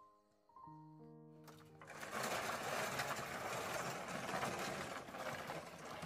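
Dry branches and leaves rustling and crackling as they are gathered up by hand: a dense, scratchy rustle lasting a few seconds, starting about a second and a half in. Soft piano music plays at the start.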